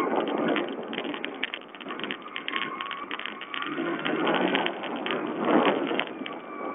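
Sherco 125 four-stroke enduro motorcycle running over a rough dirt trail, its engine mixed with wind rush and many rattling knocks from the bumpy ground. It is heard through a low-quality watch camera microphone.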